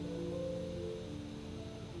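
Concert pedal harp played solo: plucked strings forming a flowing melody, each note ringing on and overlapping the next.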